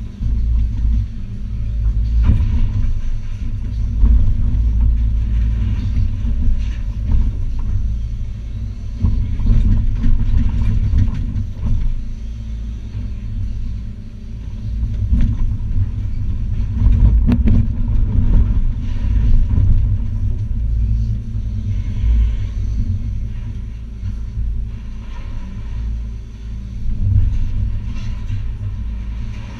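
Diesel engine of a Hitachi ZX280 excavator running under load, heard from inside the cab, with irregular crashes, knocks and scraping as the bucket tears down timber and corrugated-metal roofing; one especially heavy crash comes about halfway through.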